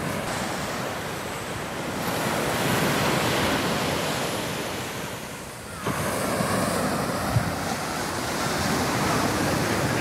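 Surf breaking on a sandy beach: a steady wash of waves that swells and eases, with wind buffeting the microphone. The sound dips briefly a little past halfway and comes back abruptly.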